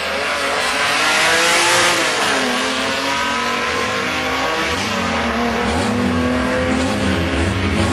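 Two drag-racing cars accelerating hard side by side down the strip, their engines revving up and down in pitch, with some tyre noise.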